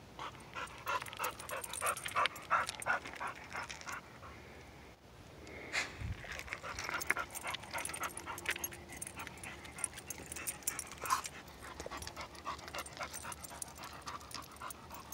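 A dog panting close by in quick, rhythmic breaths that come in runs with short pauses, with crunching steps on loose rocky ground.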